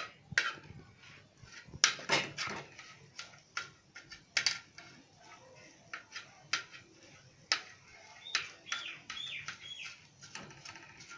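Steel knife and slotted metal spatula tapping and scraping in a frying pan as fried chicken pieces are chopped up in it: irregular sharp clicks and knocks, with a few short high squeaks near the end.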